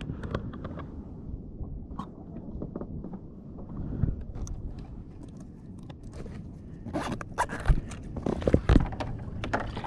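Clicks, scrapes and knocks of a fishing rod and reel being handled on a kayak, with a burst of sharper knocks and two heavy thumps near the end.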